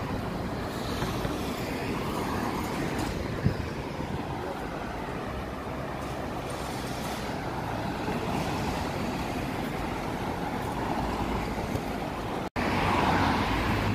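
City street traffic noise: a steady rumble of cars on a wide avenue, with a short tick about three and a half seconds in and a brief dropout near the end.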